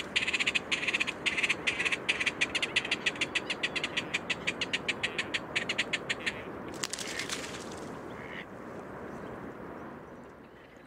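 Great crested grebes calling at copulation on the nest platform: a fast rattling series of sharp notes that grows quicker and breaks off about six seconds in, followed by two short bursts.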